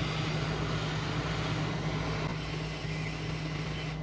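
Hot air rework station blowing: a steady rush of air with a low fan-motor hum, as it heats a surface-mount resistor on the graphics card to solder it. The airflow stops abruptly at the very end.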